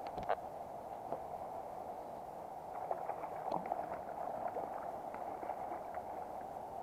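Steady rush of a shallow river flowing over stones, with scattered light clicks and splashes, a sharp one right at the start and a cluster about three to four seconds in.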